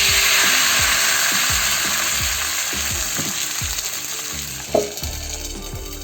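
Thin neer dosa batter sizzling on a hot pan. The loud hiss starts suddenly and slowly dies down, with a brief clink a little before the end.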